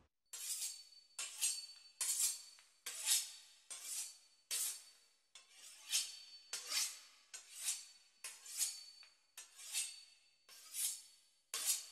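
A knife sawing back and forth through the crisp pastry crust of a beef Wellington, a rasping scrape repeated about one and a half times a second.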